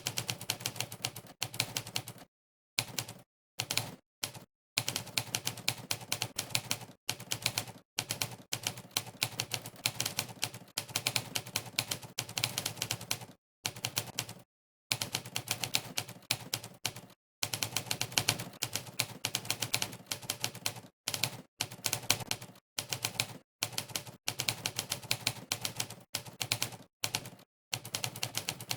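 Monkeytype's typewriter sound effect: a sampled typewriter key clack played for each keystroke, in fast runs of rapid clicks broken by brief pauses of total silence between bursts of typing.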